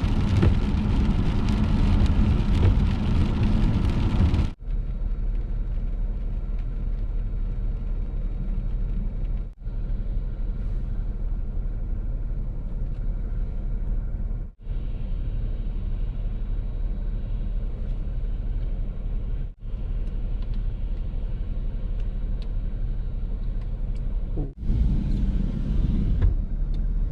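Steady low rumble of a car on the road, heard from inside the cabin, with a brighter hiss over it for the first few seconds. The sound cuts out briefly and evenly about every five seconds.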